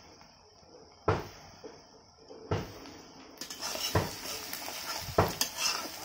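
Metal spatula knocking and scraping against a steel kadai as frying onions are stirred in hot oil. The first few seconds hold only a couple of knocks; from about three and a half seconds in, the stirring is steady, with a sizzle and frequent clanks.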